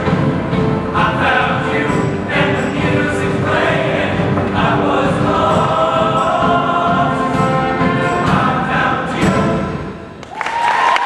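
Men's show choir singing in full voice. The song ends about ten seconds in, and the audience breaks into cheering and whoops.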